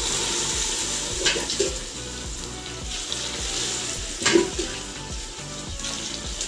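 Water ladled into hot oil and fried onions in a large steel pot, sizzling and hissing, with sharper surges as ladlefuls go in about a second in and again around four seconds in.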